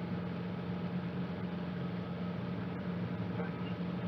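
Cabri G2 helicopter's four-cylinder Lycoming piston engine and rotors running steadily, a constant low drone with a hum over an even hiss.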